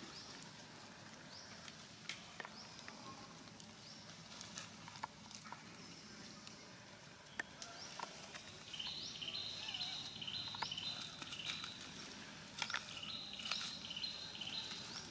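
Quiet outdoor ambience with scattered light clicks and rustles. From about nine seconds in, a high, rapid chirping call repeats in short runs.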